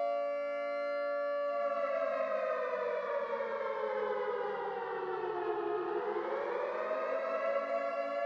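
Civil-defence siren sounding for the curfew: a steady wail that slides slowly down in pitch for about four seconds, then climbs back up to its steady tone near the end.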